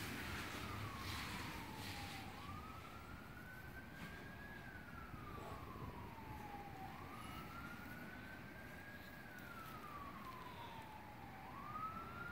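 Faint emergency-vehicle siren on a slow wail, rising, holding briefly, then sliding down again, about three times over.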